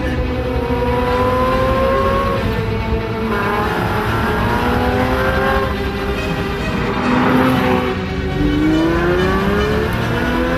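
Pagani Zonda's Mercedes-AMG V12 accelerating hard through the gears, its pitch climbing and then dropping back at each upshift, several times over. A short rush of noise comes about seven seconds in.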